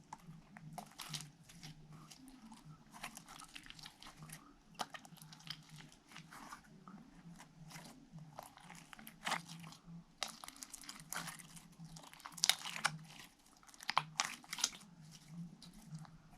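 Slime being squeezed, folded and stretched in the hands, giving off irregular crackling and popping clicks.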